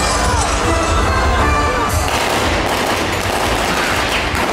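Dirt bike engine revving hard with a rapid crackling exhaust as the stunt motorcycle accelerates, over loud show music.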